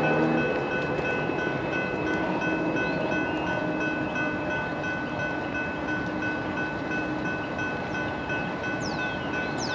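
GS Type 3 E railroad crossing bell ringing steadily while the crossing signals warn of an approaching train.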